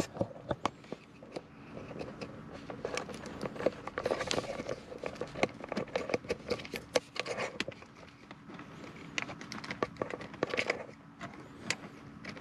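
Small plastic clicks and rustling from hands working the gear selector switches' electrical connectors loose, pressing the locking tangs and tugging at the plugs; the clicks come irregularly, several a second at times.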